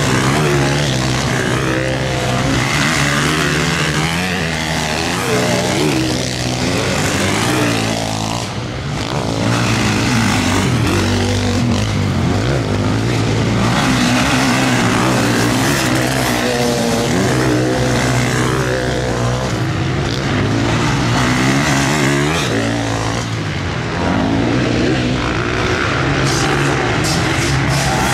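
Several motocross bikes racing close by, their engines revving up and down over one another as they climb and jump a crest of the track. The sound eases off briefly twice, about a third of the way in and again near the end.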